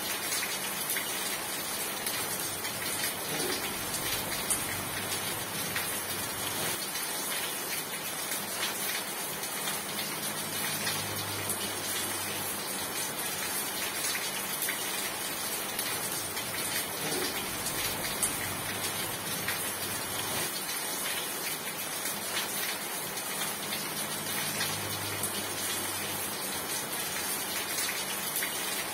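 Steady heavy rain falling, a dense even hiss with many fine drop impacts.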